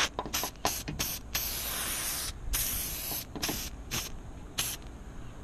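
Aerosol can of silicone spray hissing in a run of short squirts, with two longer sprays of about a second each in the middle, lubricating the door's window channel so the glass slides smoother.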